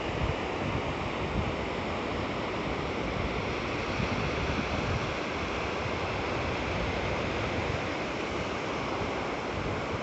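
Small waves washing up over a shallow sandy beach, a steady hiss of surf and foam, with light wind rumbling on the microphone.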